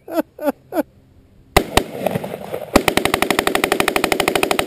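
Semi-automatic rifle being bump-fired: a few single shots, then from about three seconds in a long, rapid, even string of shots like automatic fire.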